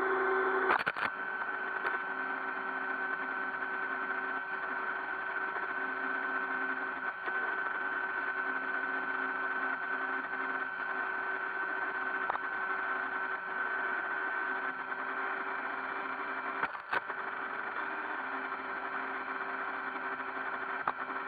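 iRobot Roomba 560 robot vacuum running: a steady motor whine with a high tone over a lower hum, and two brief knocks, one about a second in and one near the end.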